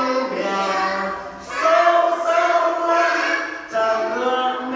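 Young children and a male teacher singing a nursery action song together in unison, unaccompanied, in two long phrases with a brief break near the end.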